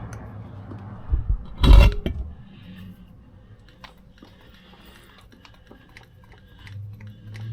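Shop work sounds from tools being handled. There are two heavy thumps about a second in, then a short, loud clunk-like burst, followed by scattered light clicks and rattles.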